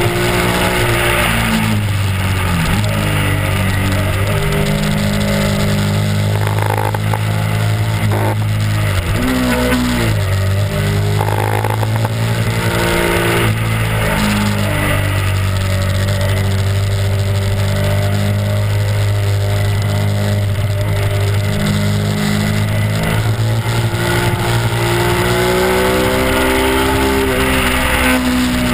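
Honda RC51's V-twin engine running at a steady road cruise, heard from on the bike with a constant rush of wind over it. The engine note drops and picks up again a couple of times near the middle, as the throttle is eased and reopened.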